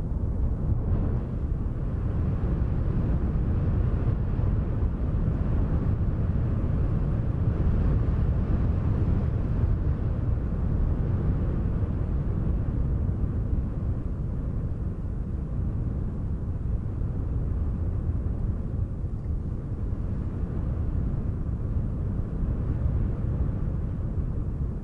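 Steady, low rumble of wind from an added background ambience track, with no distinct events.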